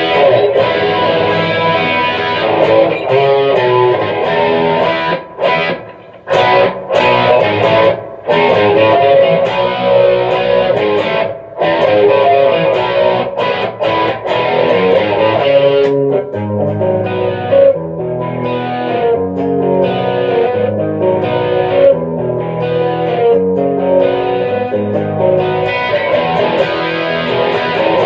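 Electric guitar on the bridge pickup played through a Gallien-Krueger 250RL amp head's overdrive channel with the gain up and stereo chorus on. Chords and riffs with a few brief breaks in the first half, then a rhythmic riff on repeated low notes from about halfway.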